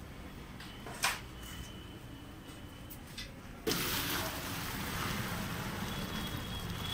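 Hot milk poured from a large pan into a steel pot of sour whey, to split it into chhena: a sudden steady rush of pouring, splashing liquid that starts about halfway through. A single sharp knock about a second in.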